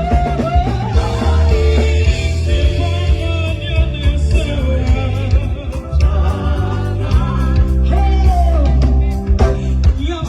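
Gospel song with a singing voice over a band, with a heavy bass line and drum beats.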